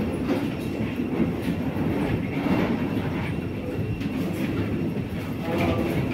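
Wheels of rolling suitcases rumbling and clattering over the floor of an airport jet bridge, mixed with footsteps.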